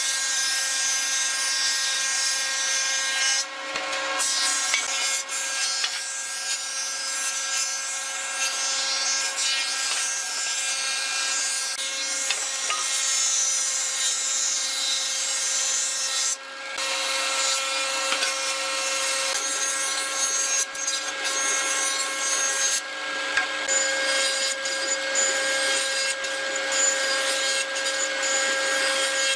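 Electric power tool running steadily while it cuts or sands pine wood. It gives a constant motor whine over a dense hiss and dips briefly twice, about three seconds in and about midway.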